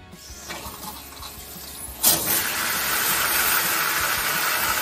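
Faucet turned on over a stainless steel utility sink: a soft hiss, then about two seconds in the water comes on at full flow and runs steadily, splashing into the steel basin.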